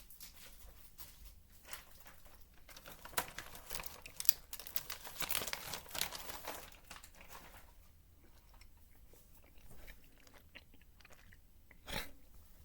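Close-up chewing of a gummy candy, with many small wet clicks and smacks, busiest over the first seven seconds and sparser after. A single sharp knock comes near the end.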